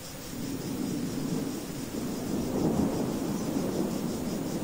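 Rolling thunder over steady rain: a low rumble swells about half a second in, peaks around the middle and eases off toward the end, with the hiss of rain underneath throughout.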